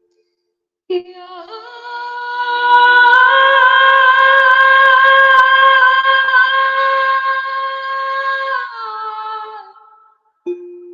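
A woman's voice singing one long, high wordless note, held steady with a slight waver; it swells about two seconds in and slides down near the end before fading, and a new note begins just before the end.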